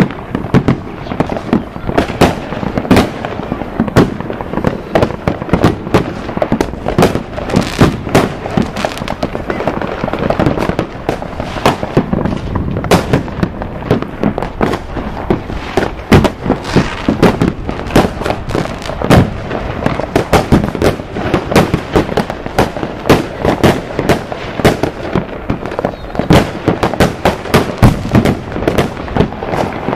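A dense fireworks barrage: many overlapping sharp bangs and cracks, several a second, with no let-up.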